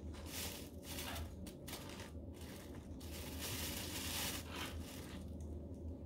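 Fresh coriander stalks and leaves crunching and tearing in short bursts, with a longer stretch of crunching from about three to five seconds in, over a low steady hum.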